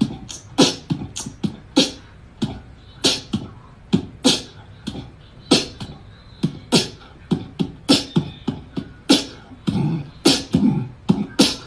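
A sparse percussive beat of sharp clicks and low thumps in an uneven rhythm, about two hits a second.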